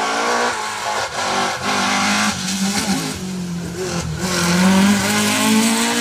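Rally-prepared Mk2 Ford Escort with a 2.4-litre XE four-cylinder race engine, driven hard past at full throttle, its engine note dropping and climbing again several times as it shifts gear. It is loudest as the car passes, just after the middle.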